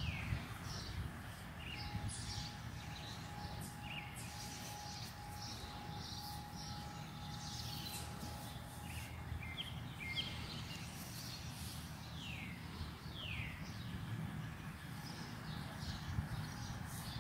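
Outdoor ambience of small birds chirping, with short falling chirps scattered throughout, over a low steady background rumble.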